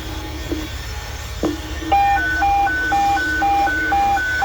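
Fire radio hi-lo alert tone: two pitches alternating about twice a second, starting about two seconds in just after a click. These are the evacuation tones ordering firefighters out of the burning building.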